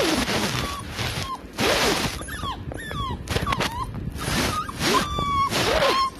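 A Kombai puppy about 45 days old whimpering: many short, high whines that rise and fall, mixed with a few lower, breathy moans.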